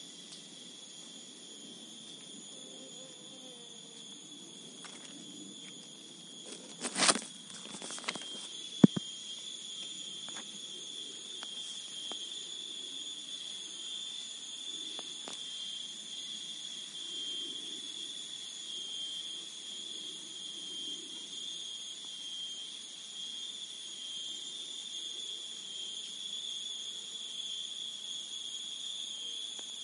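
Forest insect chorus: a steady, high-pitched shrill drone that does not let up. A loud short knock-like sound comes about seven seconds in, and a sharp click about two seconds later.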